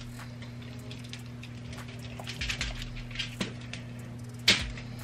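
Hands pressing sliced onion onto a whole fish on aluminum foil: soft rustling and crinkling, with one sharper crinkle about four and a half seconds in, over a steady low hum.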